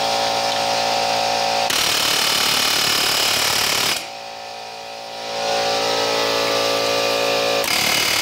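Pneumatic air hammer with a chisel bit hammering rapidly on a car's front hub bearing, working loose a bearing seized in the knuckle by rust. The hammering eases off for about a second around the middle, then runs hard again.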